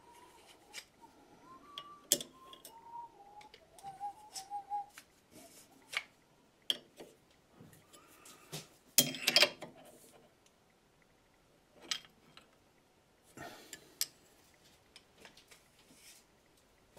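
Scattered sharp clicks and metallic knocks of tools and parts being handled at a metal lathe, the loudest cluster about nine seconds in. Soft, wavering whistling during the first five seconds.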